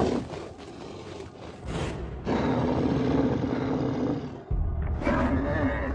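Film soundtrack: a bison bellowing at the start over dramatic music, with a deep rumble coming in about four and a half seconds in and another low call just after.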